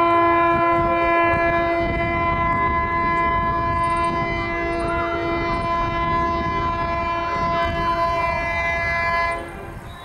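Indian Railways electric locomotive sounding one long, steady multi-tone horn blast as it approaches, over the rumble of the train on the track; the horn cuts off about nine seconds in.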